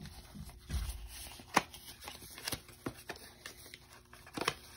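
Cardboard box and plastic wrapping being handled as a small boxed mini LED nail lamp is worked open one-handed: rustling with a low thump and several sharp clicks and taps, the loudest about a second and a half in.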